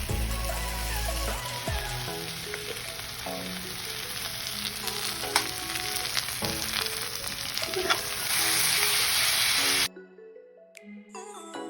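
Food frying and sizzling in a hot pan, with a few sharp clicks, over background music. The sizzle swells louder about eight seconds in and cuts off abruptly near the end.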